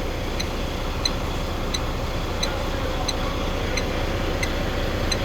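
Volvo FH12's 12-litre inline-six diesel idling steadily at operating temperature, with a faint light tick repeating about every two-thirds of a second.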